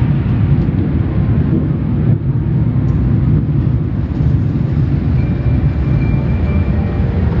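Automatic car wash equipment running as a steady, loud rumble, heard from inside the car's cabin.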